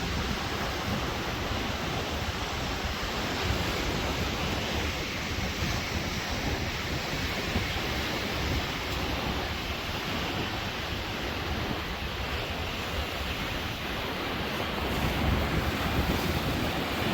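Sea waves washing on the shore as a steady rush, with wind buffeting the microphone; the surge swells a little near the end.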